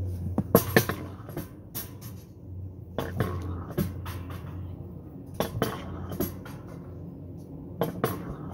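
Alpine coaster cart being hauled up the lift section of its track: a steady low hum with irregular clicks and clacks.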